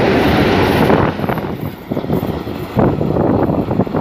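Twin WDM-3A diesel locomotives running light pass close by, loud engine and wheel noise; about a second in it drops away to uneven gusts of wind on the microphone.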